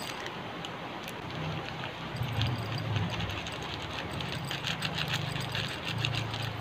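Dried coriander seeds poured from a plastic bag into a ceramic bowl: a dense patter of small ticks as the seeds hit the bowl, starting about two seconds in. A low hum runs underneath.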